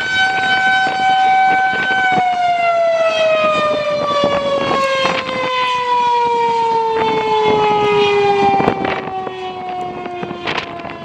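Federal Signal 2001-130 electro-mechanical rotating warning siren holding a steady tone, then about two seconds in beginning its wind-down, its pitch falling slowly and evenly as the rotor coasts to a stop at the end of the test. Gusts of wind buffet the microphone throughout.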